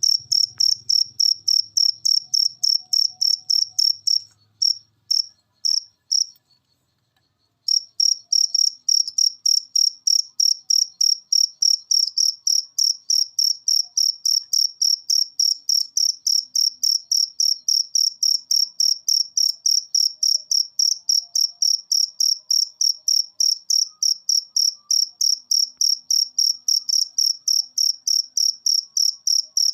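Cricket chirping in a steady, even rhythm of about three shrill chirps a second. It falters and falls silent for about a second a little after four seconds in, then picks up again at the same rhythm.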